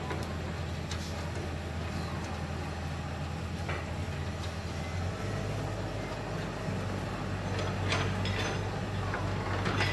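A steady low mechanical hum, shifting slightly in pitch about halfway through, with a few light metallic clicks of a wrench working at a motorcycle's handlebar fittings toward the end.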